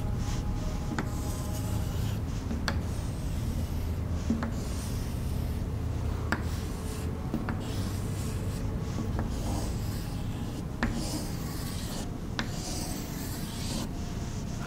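Chalk scratching across a chalkboard in a series of strokes with short pauses between them, with a few sharp ticks as the chalk strikes the board.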